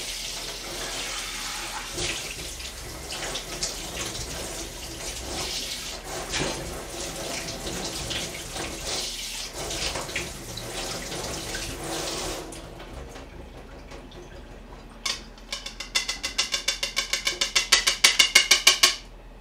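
Kitchen tap running into a sink while minced beef is rinsed; the water stops about twelve seconds in. Near the end comes a fast run of rattling knocks, about six a second, louder than the water.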